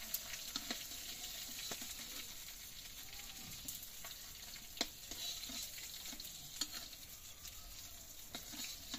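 Hot oil sizzling faintly in a metal wok after fish has been fried in it, with a metal spatula scraping and clicking against the pan now and then; the loudest click comes about five seconds in.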